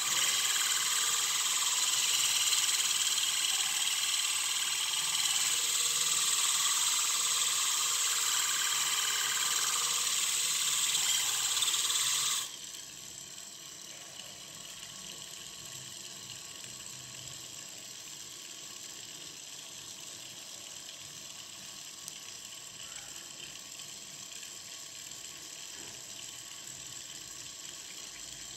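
A wooden block pressed against the spinning disc of a homemade rotary sander, driven by a 24 V reverse-osmosis pump motor, makes a loud, steady abrasive hiss. The hiss stops suddenly about twelve seconds in when the block is lifted away, leaving the motor's quieter steady running sound.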